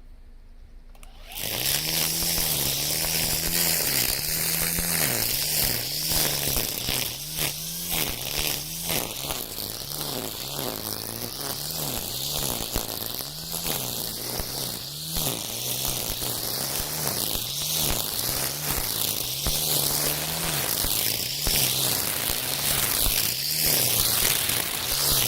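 Makita 40V cordless brush cutter starting up about a second in and spinning nylon trimmer line through weeds, its motor whine repeatedly dipping and recovering as the line bites into the growth, over a thick hiss of whipped grass.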